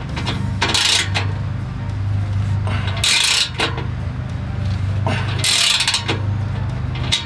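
Steel exhaust pipe scraping and clinking as gloved hands work the new inlet pipe onto the truck's factory Y-pipe. It comes in three short rasping bursts with light metallic clicks between them.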